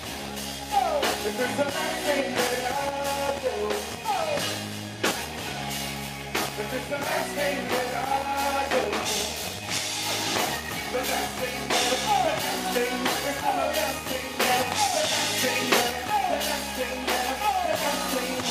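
Live band music with a drum kit and electric guitar, and a man's singing voice over it.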